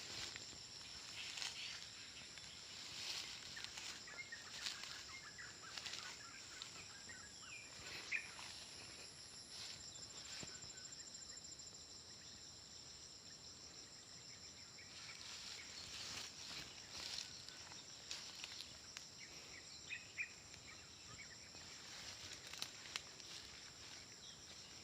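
Outdoor ambience: a steady high-pitched insect drone, with scattered clicks and rustles and a few faint bird chirps.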